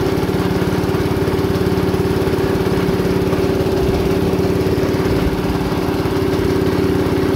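Rol-Air gas air compressor running at a steady speed, its small single-cylinder petrol engine driving the belt-driven pump, with the drive belt freshly tightened.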